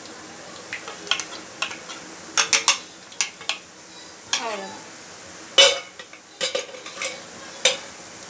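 Boondi batter frying in hot oil in a steel pan, a steady sizzle, with repeated sharp metal clicks as a steel spoon and cup knock against the perforated boondi ladle and the pan.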